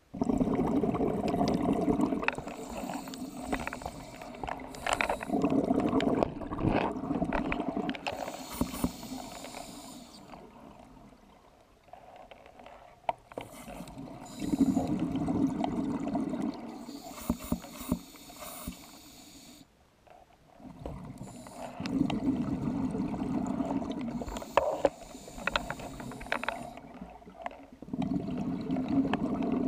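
Scuba diver breathing through a regulator underwater: loud bubbling exhalations recur every several seconds, with a thin hiss of inhalation between them.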